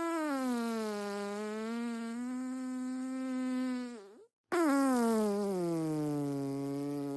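Two long, drawn-out, tonal human farts. The first buzzes steadily after a slight drop in pitch and stops about four seconds in. After a brief pause the second starts higher and slides down in pitch as it goes on.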